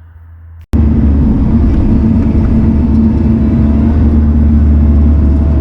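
Diesel engine of heavy earthmoving equipment running steadily and loudly, cutting in abruptly about a second in.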